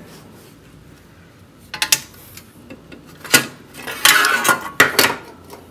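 Welded steel bracket and locking-pliers clamp being handled on a metal bench: several sharp metallic clanks from about two seconds in, with a short scraping rattle about four seconds in that is the loudest part.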